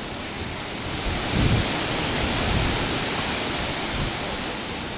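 Storm wind gusting through trees, a steady rushing hiss with low rumbles as the gusts buffet the microphone. It swells about a second in and eases near the end.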